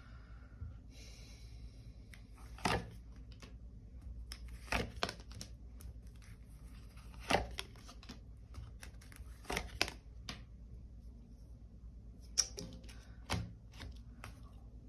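Tarot cards being handled and laid down: soft rustling of card stock with several sharp snaps or taps spread every couple of seconds.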